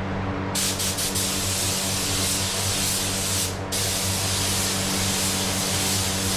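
Paint spray gun hissing as a touch-up coat of paint goes onto a plastic car bumper, starting about half a second in, pausing briefly once, then carrying on.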